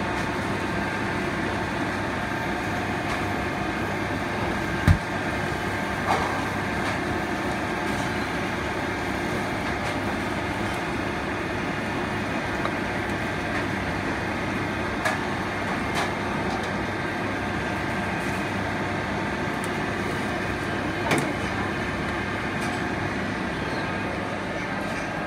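Steady fan noise of a commercial conveyor pizza oven and kitchen extraction, with a sharp knock about five seconds in and a few light metal clicks.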